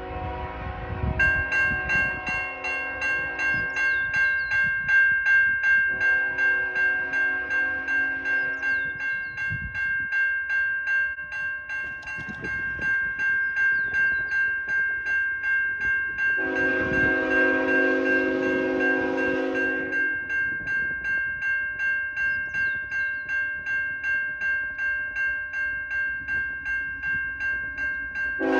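A freight locomotive's Nathan K5HL five-chime air horn sounding three long blasts for a level crossing, with a fourth starting at the very end. Under it, crossing-signal bells ring steadily from about a second in as the approaching train trips the crossing.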